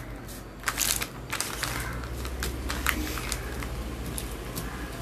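Scattered crackling and rustling clicks, a cluster of sharper ones about a second in, over a low steady hum.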